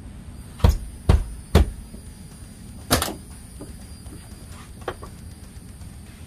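Lincoln Town Car rear door pounded by hand three times in quick succession, then another heavy clunk about three seconds in and a light click near the end. It is a test that the broken window glass, secured shut, stays put.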